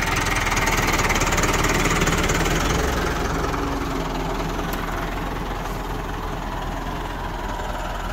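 Massey Ferguson 385 tractor's newly fitted diesel engine running steadily, a little louder in the first few seconds and then slowly easing off. It runs smoothly, as a healthy fresh engine should.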